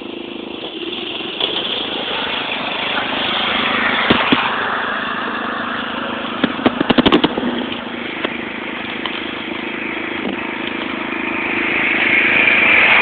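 Lawn mower engine running and revving, with a quick rattle of sharp knocks about halfway through; it grows louder near the end.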